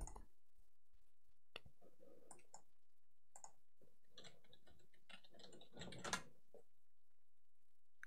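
Faint, scattered clicks of a computer keyboard and mouse as a password is typed in, over near-silent room tone.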